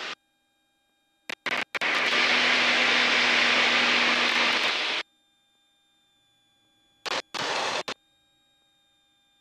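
Aircraft intercom audio in an aerobatic plane: the headset microphone's voice-activated gate opens and closes, letting through cockpit engine and wind rush in hard-edged bursts. A long steady rush of about three seconds, with short bursts before it and another near the end, and near silence between them apart from a faint steady intercom tone.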